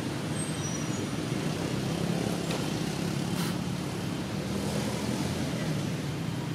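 Steady low rumble with an even hiss of outdoor background noise, with no clear animal calls.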